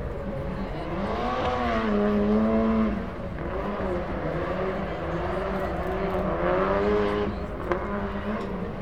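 Ford Fiesta gymkhana rally car's engine revving hard, pitch rising and falling in surges as the car drifts, with one sharp pop near the end.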